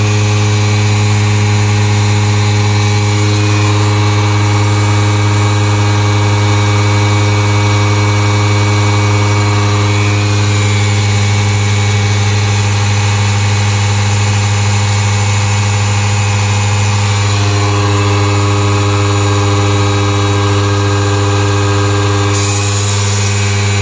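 Two 2-gallon portable air compressors, a Craftsman and a Harbor Freight Fortress Ultra Quiet, running together as they pump up their tanks. A loud, steady motor-and-pump hum with a strong low drone.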